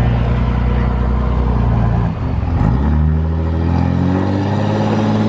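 2005 Dodge Ram 2500's straight-piped 5.9 Cummins diesel pulling under heavy throttle to roll coal. The note holds steady, dips briefly about two seconds in, then climbs steadily as the truck accelerates.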